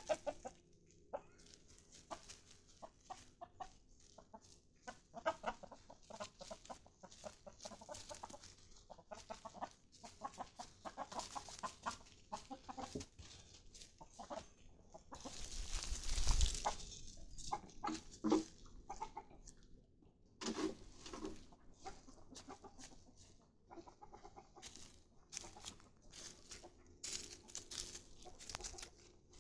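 Chickens clucking on and off, among many short rustles and clicks. A louder burst of rustling noise about halfway through.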